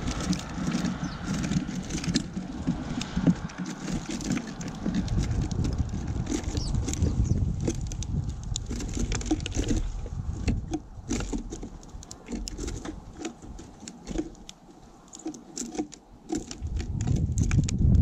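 House sparrows pecking and scrabbling in loose sunflower seed and cracked corn on a wooden platform feeder: a dense run of quick clicks, taps and seed rattles. The clicking thins out and gets quieter after about ten seconds, with low rumbling bumps at the start and again near the end.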